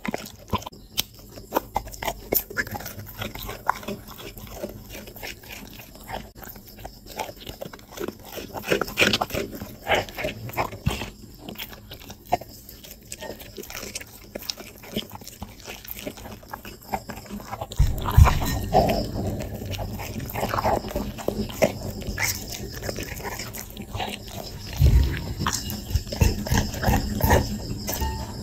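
A dog chewing and smacking its mouth over pieces of grilled fish, with many small wet clicks. About two-thirds of the way in it becomes louder and heavier as the dog chews and licks at the plate.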